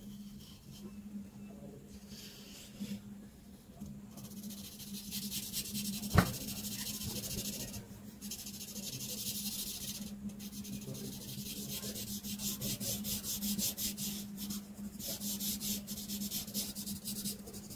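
Art marker tips rubbing and scratching across paper in quick, repeated colouring strokes, in stretches separated by short pauses. A sharp click about six seconds in.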